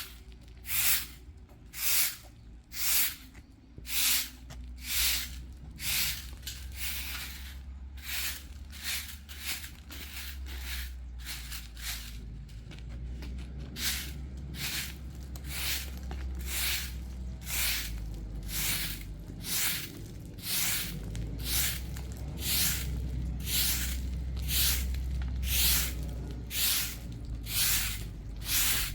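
Hand saw cutting through firewood, each stroke a short rasping hiss, about one a second at first and then quicker, nearer two a second, over a steady low rumble.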